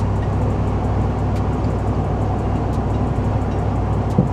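Car cabin noise while driving: a steady engine and road drone, with faint, irregular light ticking rattles from loose RCA cables behind the seat.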